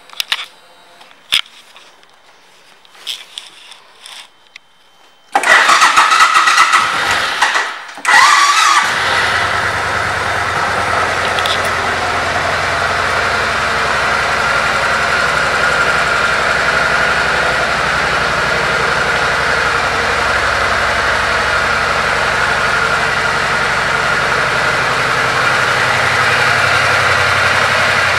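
A few light clicks, then about five seconds in the 2005 Suzuki Boulevard C90T's V-twin starts up loudly. It dips and revs briefly near eight seconds, then settles into a steady idle.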